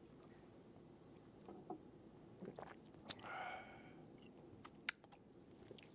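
Faint mouth sounds of someone taking a sip of whiskey: a few soft lip and tongue clicks, a short sip about three seconds in, and a sharper click near five seconds.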